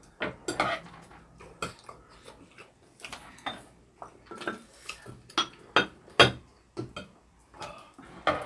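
Eating utensils clinking and scraping against dishes and a cooking pan in irregular sharp clicks and clatters.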